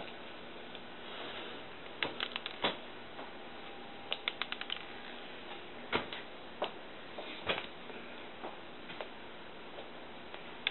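Small hard pearl sprinkles thrown by the handful at a frosted cake, ticking and pattering as they land and bounce. The clicks come in several quick bursts about two seconds apart.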